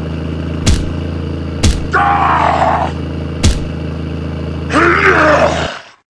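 Steady low hum of a dubbed tractor engine sound effect, hit by three heavy thuds about a second apart and joined twice by deep grunting groans. The engine sound cuts off near the end.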